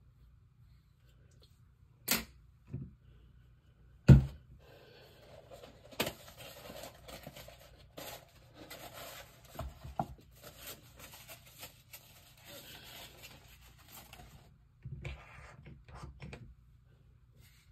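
Close-up handling sounds. A few sharp taps come first, then about ten seconds of rustling and scraping with scattered clicks, and a shorter rustle near the end.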